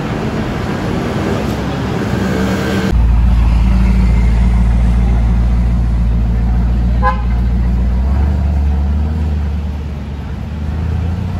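Motorbike engines running amid traffic. After an abrupt cut about three seconds in, one engine runs close by with a low, steady sound. A vehicle horn gives one short toot about seven seconds in.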